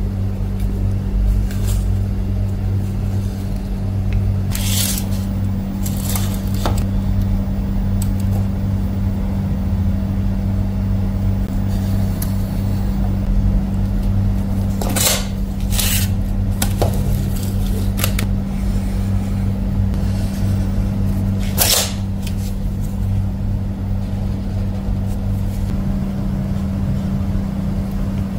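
Steady low hum with several short, sharp clicks over it.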